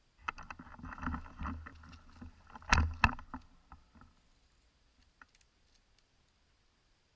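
Close handling noise on the microphone: irregular rustling and knocks with a low rumble, two sharp loud knocks about three seconds in, then it falls almost quiet.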